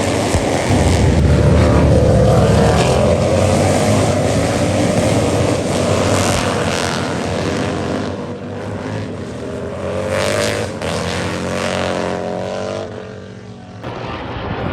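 Racing motorcycles going by on the track, several engines rising and falling in pitch as they pass.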